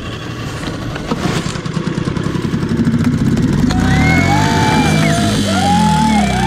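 A small outboard motor running in neutral after a restart with the choke pushed in. About three and a half seconds in, background music with sliding notes starts over it.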